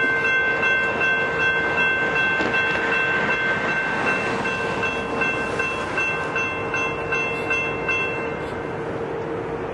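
Railroad grade-crossing warning bell ringing steadily as the crossing gates lower, over a continuous rushing noise. Its higher ringing drops away about eight seconds in, as the gates come to rest, while a lower steady tone carries on.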